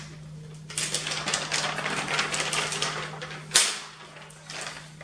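Stiff plastic laminating-pouch film crackling and rustling as it is handled and pulled apart into its two sheets, for about three seconds, ending in a sharp snap.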